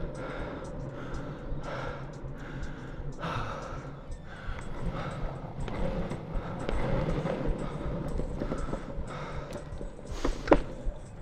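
Longboard wheels rolling over pavement, a steady rumble with regular ticking, and the rider breathing. A sharp click about ten seconds in is the loudest sound.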